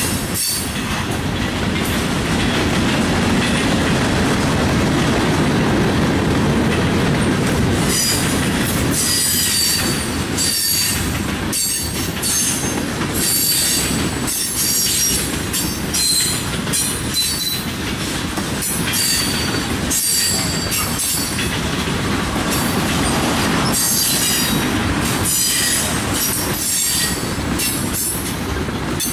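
Freight train's hopper and tank cars rolling past close by: a steady rumble of steel wheels on the rails. From about eight seconds in, short high-pitched wheel squeals come again and again.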